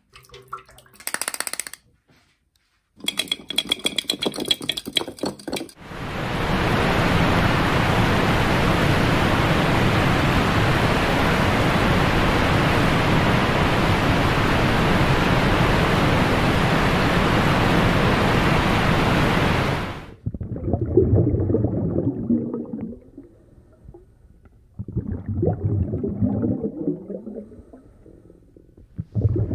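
A string of story sound effects: a few short sounds, one with a steady high tone, then about fourteen seconds of a loud, even rushing noise that cuts off suddenly, followed by irregular low rumbling bursts with pauses between them.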